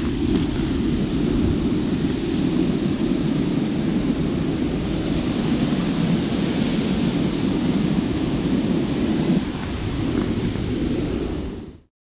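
Steady, loud rushing noise that fades and cuts off near the end.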